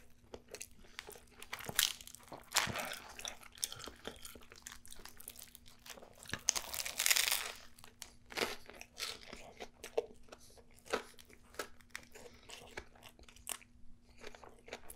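A person biting into and chewing a large crusty sandwich close to the microphone: crisp crunching and crackling chews, with a longer, louder bite about halfway through.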